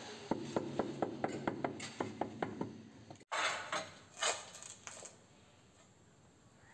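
A mallet tapping a cladding tile to bed it onto the wall, in light, even knocks about four a second, stopping suddenly about three seconds in. Then a few scattered knocks and scrapes of tiles being handled.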